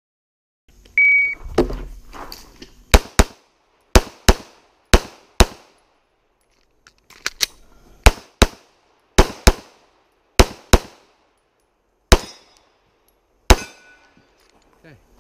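Shot timer's start beep, a single short high tone about a second in, then a handgun firing in quick pairs. Six shots go in three pairs, there is a pause of nearly two seconds for a magazine reload, six more shots follow in three pairs, and near the end come two single, more widely spaced shots.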